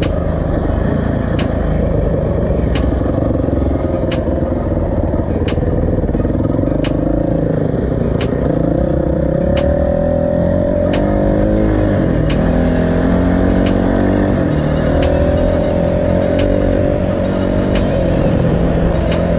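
Motorcycle engine running while under way, its note dipping and climbing again a few times as the revs change. A sharp tick repeats about every second and a half over it.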